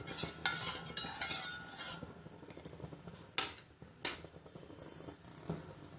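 A spoon stirring and scraping around a saucepan of milky masala tea for about two seconds, then two sharp clinks and a fainter knock a little later.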